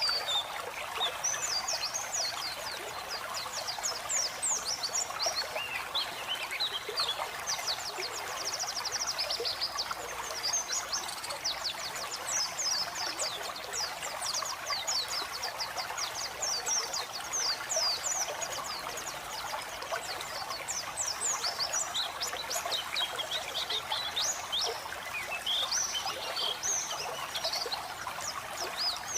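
White-eye (pleci) singing in long runs of quick, high chirps and twitters, over a steady sound of running water.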